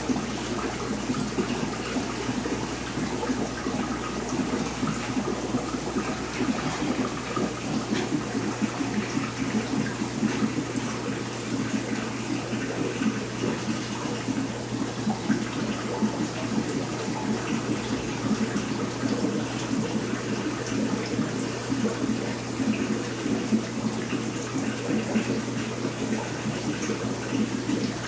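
Aquarium filtration running: a steady rush of moving water in the tank, with a steady low pump hum underneath.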